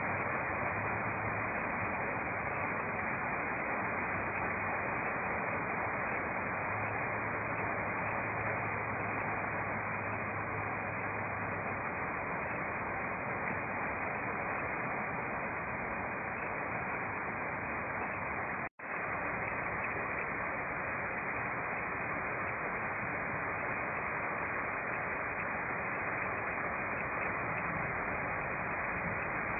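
Heavy rain pouring steadily onto roofs and a flooded paved lane, an even hiss with no let-up. The sound cuts out for an instant about two-thirds of the way through.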